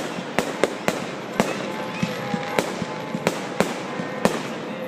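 Fireworks going off: an irregular run of sharp bangs and pops, two or three a second, over a steady background hiss.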